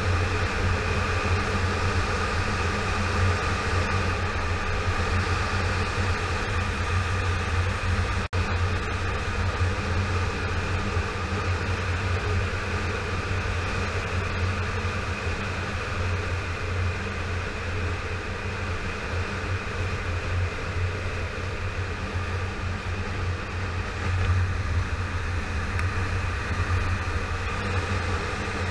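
Yamaha FZ6R motorcycle's inline-four engine running at a steady cruising speed, a constant drone mixed with wind and road noise, with no revving or gear changes. The sound cuts out for an instant about eight seconds in.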